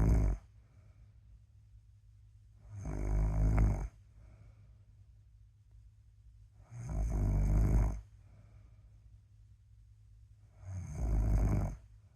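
A sleeping person snoring: loud rasping snores, one about every four seconds. There are three full snores, plus the end of another right at the start, with quiet breathing between them.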